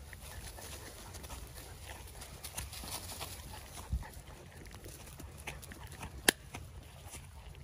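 Footsteps of people walking along a dirt trail strewn with dead leaves, with scattered short clicks and rustles over a low steady rumble. A single sharp snap about six seconds in is the loudest sound.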